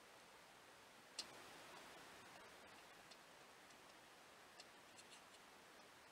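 Faint metallic clicks of a BSA A65 inlet valve rocked by hand in its guide: one sharper click about a second in, then a few light ticks near the end. The rattle is the sign of a badly worn, sloppy inlet valve guide.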